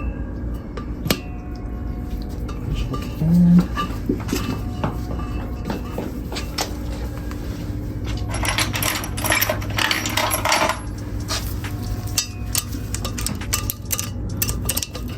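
Metal tools and valve parts clinking and rattling while valves are being removed from a Honda B20 cylinder head, with scattered sharp clicks and a denser stretch of rattling about eight to ten seconds in. A brief low buzz about three and a half seconds in is the loudest moment.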